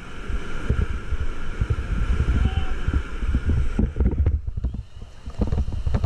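Whitewater rapids rushing and splashing around an inflatable raft, with heavy wind buffeting on the raft-mounted camera's microphone. The rush thins briefly about five seconds in.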